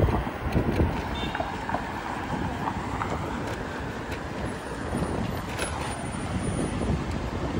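Wind rumbling on the microphone over city street traffic noise while riding an e-bike along the road, with a brief high beep about a second in.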